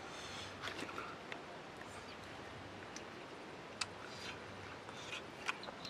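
Faint scattered clicks and smacks of a person eating fish with his fingers and chewing, over a low steady outdoor hiss.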